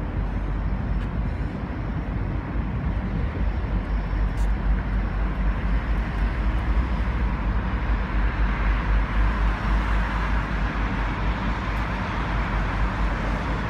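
Pacific National G class diesel-electric locomotive hauling a freight train, its engine giving a steady low rumble as it approaches. A rushing noise grows louder from about eight seconds in.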